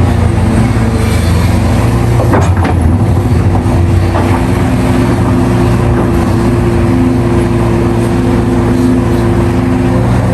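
Large excavator's Isuzu diesel engine running steadily, with a low rumble. A few faint knocks come about two and a half seconds in.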